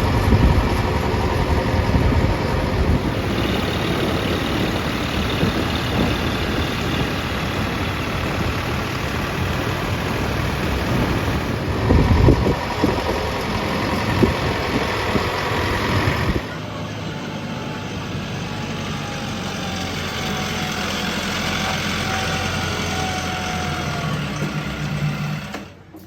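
Diesel engines of a backhoe loader and tractors running under work, with a few loud knocks about twelve seconds in; about sixteen seconds in the sound cuts to a quieter, steadier engine drone.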